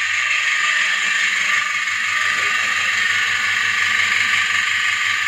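Double-bucket milking machine with a vacuum pump running steadily: an even hiss of air over a fast, regular ticking pulse.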